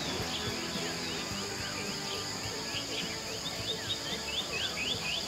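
Closing moments of a guitar-band demo cassette recording: faint held notes under a run of short descending chirps that come about three a second towards the end, over a steady high hiss.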